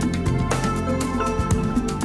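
Background music with held notes over a steady beat, about two beats a second.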